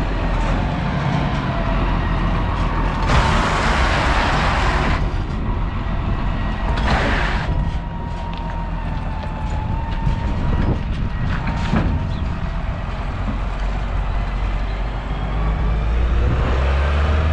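Farm tractor engine running steadily with a low rumble, swelling near the end. Two loud hisses come through it, one about two seconds long around three seconds in and a shorter one a few seconds later, with a couple of sharp clicks after.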